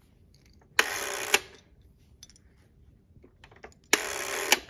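Yellow plastic Perfection game pieces being handled and set down on carpet, with a few faint clicks of plastic. Two half-second rustling swishes, each starting and ending with a sharp click, come about a second in and again near the end.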